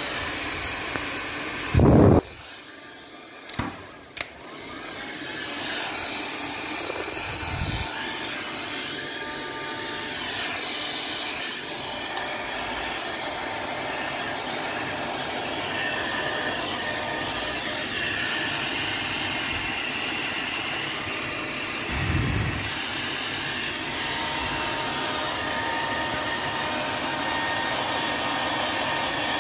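Crown CT19007 2000-watt heat gun running, its fan blowing steadily. About two seconds in there is a loud thump, the airflow drops for a couple of seconds with two clicks, then it picks up again.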